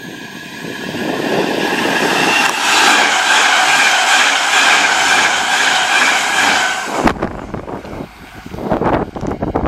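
DB Class 423 S-Bahn electric multiple unit approaching and passing close by: a rising rush of wheels and air with a steady whine on top, loudest in the middle. About seven seconds in it switches abruptly to a low rumble with knocks, heard from aboard a moving train.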